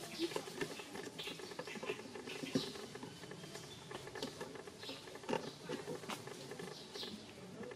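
Irregular rustling and crackling in dry leaf litter, with faint high chirps here and there.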